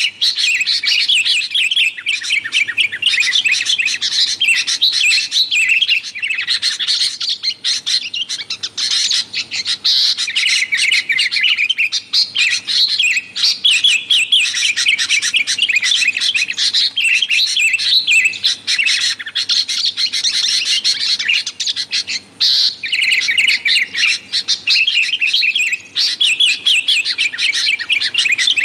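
Sooty-headed bulbuls (kutilang) chattering noisily: dense runs of rapid, high chirps with only brief pauses.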